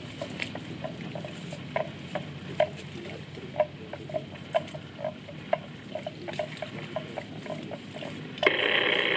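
Water buffalo grazing in shallow marsh water: short irregular crunching ticks, a few a second, of grass being torn and chewed. A loud rushing noise lasting about a second comes near the end.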